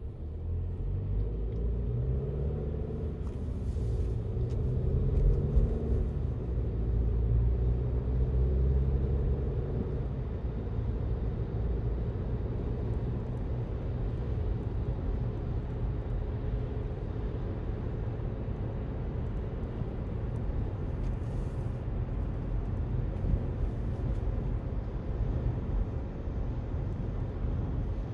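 Road traffic on a busy street: a heavy engine pulls away, its note rising over the first few seconds and holding until about ten seconds in, then a steady low traffic rumble.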